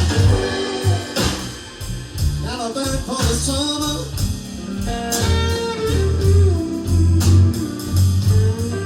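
Live blues band playing: electric guitar bending and sliding notes between the vocal lines, over bass and drums.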